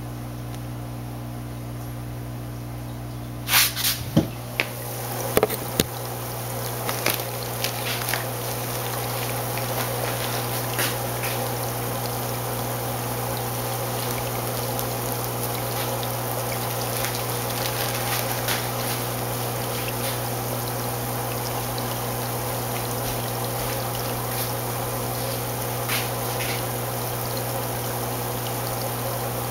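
Aquarium water trickling and splashing steadily over the low, even hum of a water pump. A few sharp knocks come about four to six seconds in, as the water sound starts.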